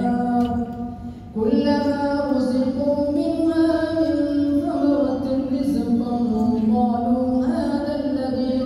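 An imam's voice chanting Quranic recitation aloud in long, held melodic phrases, leading the recited part of the maghrib prayer; there is a short breath pause about a second in.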